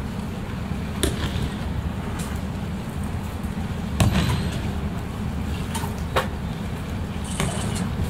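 Aikido partners taking breakfalls on tatami mats: a handful of sharp thuds and slaps as bodies and hands hit the mat, the loudest about four seconds in, over the steady hum of a large hall.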